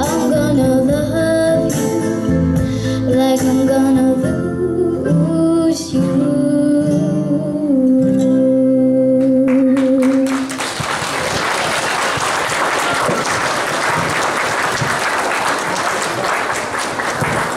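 A girl's solo singing over a recorded backing track, closing with long held notes with vibrato as the song ends. About ten seconds in the music stops and the audience applauds.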